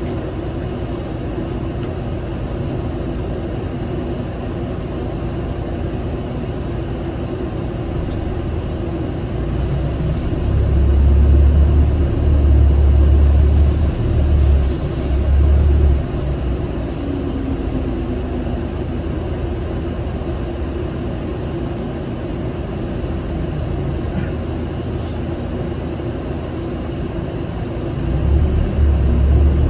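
Interior running noise of a Mitsubishi Fuso Aerostar city bus under way: a steady diesel engine hum with road and tyre rumble. A deep low rumble swells for several seconds midway and again near the end.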